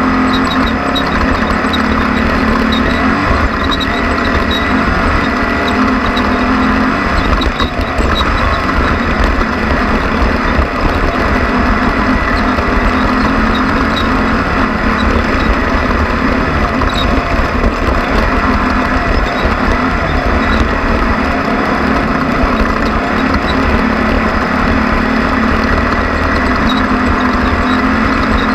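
Off-road race vehicle's engine running hard at speed, loud and steady, with a brief dip in the engine note about seven seconds in before it picks back up.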